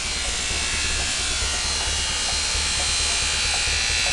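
Angle grinder with a flap disc running steadily with a high whine, polishing a steel drill-press column that a forklift wheel spins against it. A low pulsing hum runs underneath.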